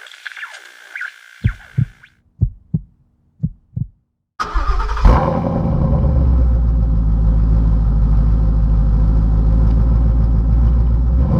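A 2016 Ford Mustang GT's 5.0-litre V8 starts about four seconds in, flares briefly, then settles into a steady, loud idle. Before it, a few short dull thumps.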